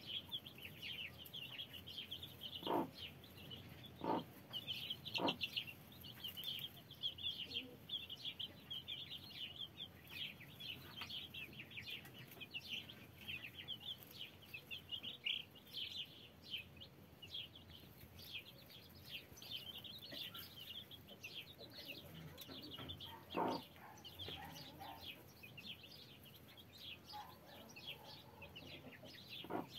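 A crowd of day-old chicks peeping nonstop, many short high chirps overlapping. A few brief, lower sounds stand out, three in the first few seconds and one a little past the middle.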